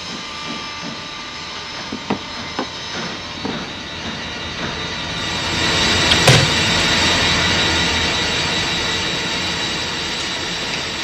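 Steady hum of workshop machinery with scattered light knocks and clicks. The machine noise swells about five seconds in, and a single hard, heavy impact lands about six seconds in.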